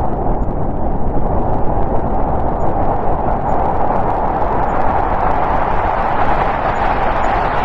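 Snowstorm wind blowing steadily, a dense rushing noise with a low rumble under it, swelling and easing slightly.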